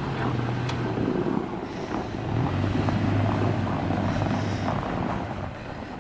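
Car engine running steadily under load as the car tries to drive forward off ice on a snowy road, with a brief dip in level about a second and a half in.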